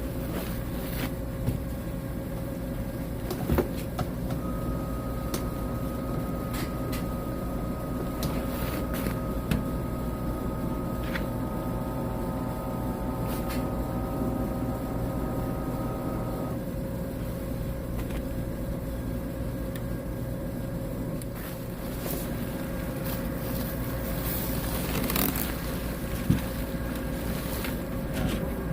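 A dehumidifier running with a steady machine hum and a constant tone, with a few sharp clicks and knocks of handling. A cluster of higher steady tones joins the hum from about four seconds in and cuts off about twelve seconds later.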